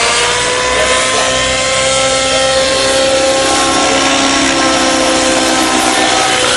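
Align T-Rex 700N nitro RC helicopter in flight, its glow engine and rotor running at high speed with a steady, buzzing tone whose pitch wavers slightly as it manoeuvres.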